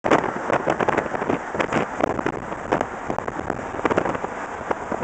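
Wind buffeting and crackling on the camera microphone from a moving car, over road and traffic noise, with a dense run of short crackles.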